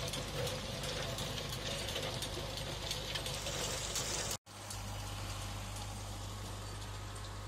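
John Deere 5615F tractor's diesel engine running with a rear-mounted rotary tiller working the soil, a steady clatter with many small ticks. After a brief cut about four and a half seconds in, the engine runs on steadily with much less clatter.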